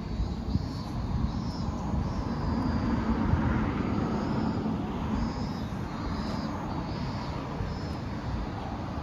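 Cicadas calling in short repeated high phrases over a louder, steady low rumble that swells around the middle.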